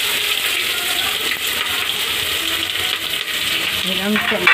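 Chopped onions sizzling as they are tipped into hot oil in a pressure cooker, with light metallic clinks of a steel plate against the cooker's rim.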